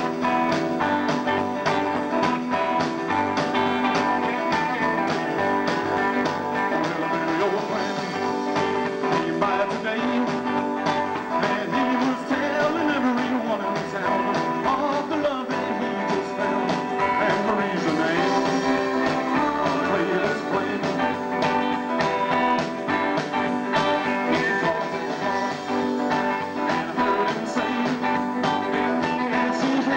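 Live rockabilly band playing a rock and roll number, with electric guitar and upright double bass, and a lead singer's voice at times.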